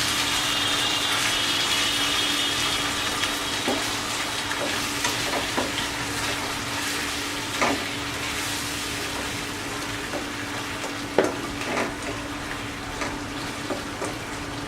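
Chicken pieces in spice paste and oil sizzling in a pan just after hot water has been added, the sizzle easing off gradually. A few short knocks of a spatula against the pan come at scattered moments.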